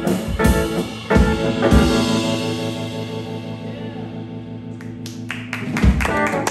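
A live band ending a blues song: a few drum hits, then a held final chord that rings out and slowly fades, closed by one last drum hit. The audience starts clapping near the end.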